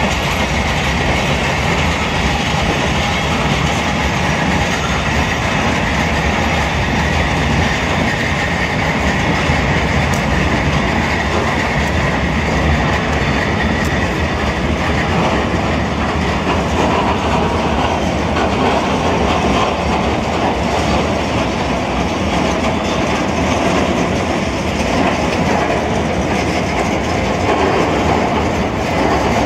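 Freight train of loaded flatcars passing at a steady pace: continuous, even noise of steel wheels running on the rails.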